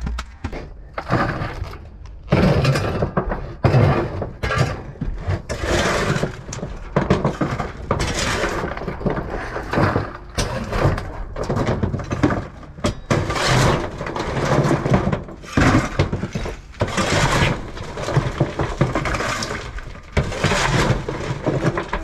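A shovel scraping along a steel trailer bed and scooping demolition rubble, broken plaster, stone and sand, with repeated scrapes and clattering debris every second or two.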